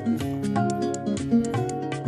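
Background music: a piece of quick plucked guitar notes.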